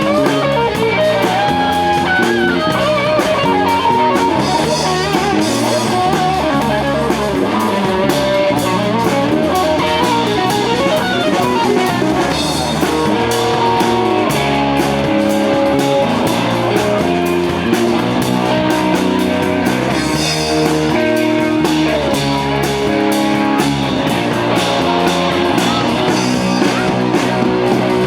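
A band playing rock music, with guitar and a drum kit keeping a steady beat.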